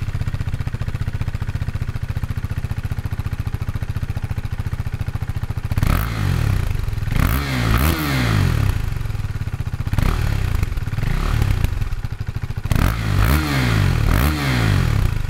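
KTM Duke 390's single-cylinder engine through its stock exhaust, idling steadily. From about six seconds in it is given a series of quick throttle blips, each rev rising and falling sharply, some in close pairs.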